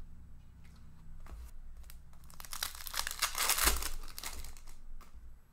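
Plastic wrapper of a hockey card pack being torn open and crinkled by hand. The dense crackle comes mostly between about two and four and a half seconds in, with a few sharp clicks before it.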